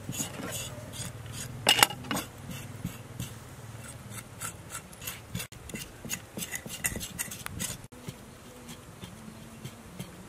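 Steel cleaver blade scraping the skin of a raw pig's head, a run of short rasping strokes, one louder about two seconds in.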